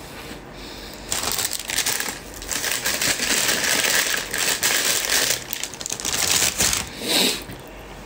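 Loud, close crinkling and crackling from a flaky jachnun pastry being handled and torn apart by hand right by the microphone. It starts about a second in and stops near the end.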